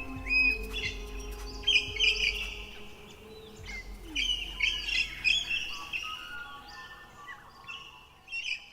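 Birds chirping and calling, many short repeated chirps in quick succession, fading out near the end.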